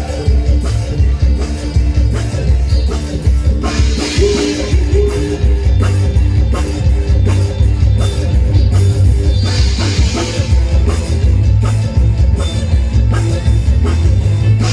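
Live luk thung band music with a strong bass line, a drum kit keeping a steady beat and electric guitar.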